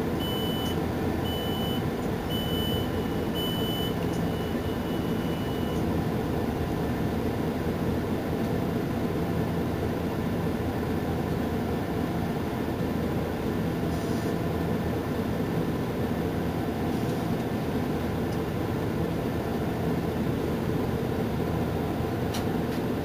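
Mercedes-Benz Intouro coach's diesel engine idling steadily while the bus stands at a stop. About four short high beeps, then a longer held beep, sound over it in the first few seconds.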